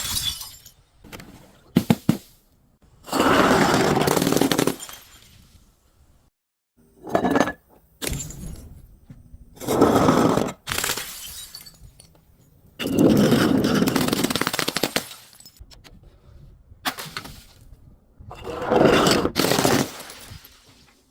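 Glass bottles being crushed and shattering, in a series of crunching breaks every few seconds, several lasting a second or more.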